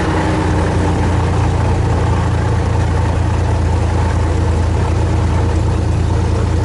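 Lycoming GO-480 geared six-cylinder engine and propeller of a Helio Courier running steadily, heard from inside the cabin as a loud, even, low drone.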